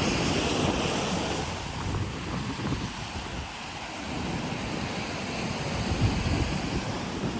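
Sea surf washing against coastal rocks, with wind buffeting the microphone; louder at the start, easing off, then rising again about six seconds in.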